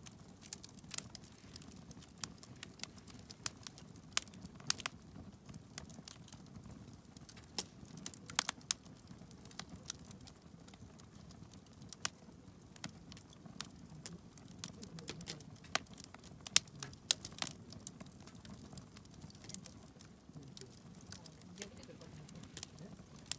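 Wood campfire crackling: irregular sharp pops and snaps over a faint low rumble.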